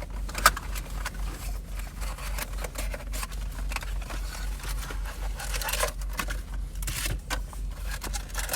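Plastic wrapping being torn and crinkled by hand as trading-card boxes and packs are ripped open: an irregular run of crackles and tearing sounds.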